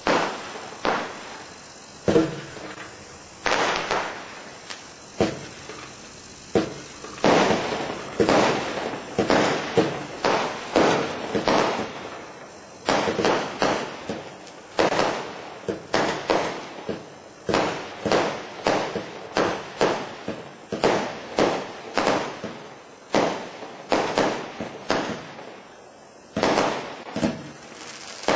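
Black Cat Colossus single-ignition firework cake firing shot after shot: a long run of bangs, at times several a second, with crackling in between.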